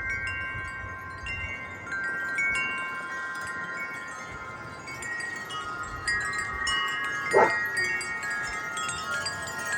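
Several wind chimes ringing in a light breeze: notes struck here and there and left ringing, overlapping one another. A short, louder sound cuts in about seven seconds in.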